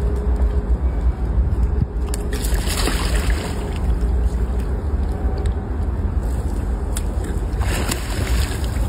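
Water splashing in a crocodile pond, twice: about two and a half seconds in and again near the end. A steady low rumble runs underneath.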